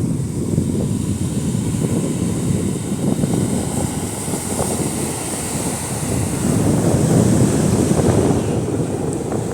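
Strong wind buffeting the microphone: a loud, fluttering low rumble that swells and eases, with no break.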